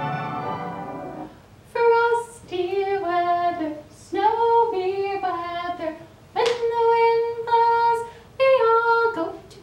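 Orchestral music fades out in the first second or so, then a woman sings a simple children's song alone, unaccompanied, in about five phrases of long held notes.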